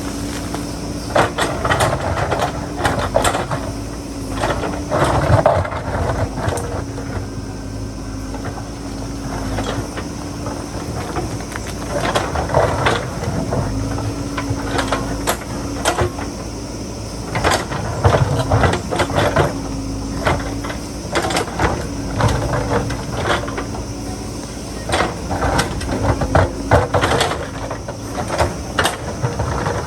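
JCB backhoe loader's diesel engine running steadily under work, with frequent knocks, clatter and scraping throughout, typical of the bucket digging into rock and soil.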